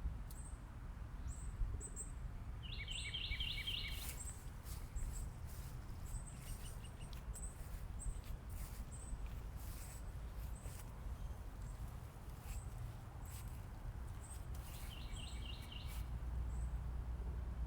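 Backyard birds singing: a short high chirp repeated about once a second, and a fast trilled phrase twice, about three seconds in and again near the end, over a steady low rumble.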